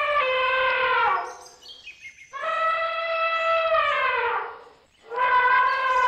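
Elephant trumpeting: a call that ends about a second in, then two more long calls, each holding a steady pitch before sliding down at its end.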